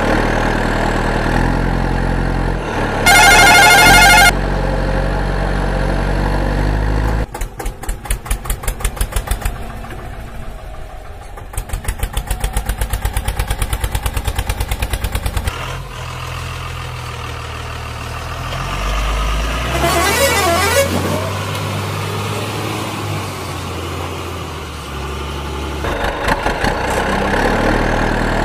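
Added vehicle sound effects for toy trucks: a truck engine running steadily with a loud horn blast about three seconds in. Then a tractor engine chugging in quick even beats, and later the engine drone again with a second, warbling horn-like sound about twenty seconds in.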